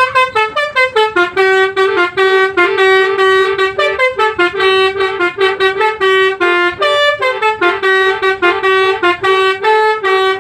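Basuri V3 telolet bus horn playing a fast melody of short notes that step up and down in pitch, about three to four notes a second, repeating the tune without a break.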